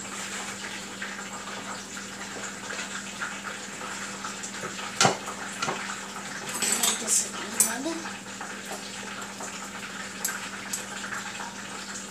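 Light clatter of plastic measuring spoons and a knife against a bowl as salt is measured out, with a sharp click about five seconds in and a quick run of clicks a couple of seconds later.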